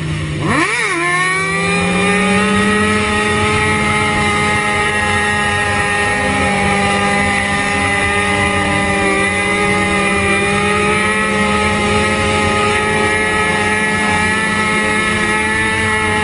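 Motorcycle engine running at steady high revs; just under a second in, its pitch drops sharply and climbs straight back, then it holds nearly level.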